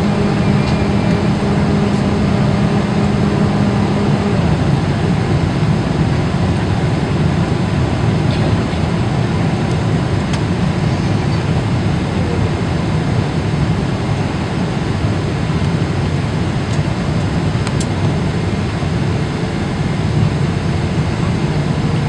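Steady jet engine and airflow noise inside a Boeing 777 passenger cabin during the landing approach. A low hum drops out about four seconds in.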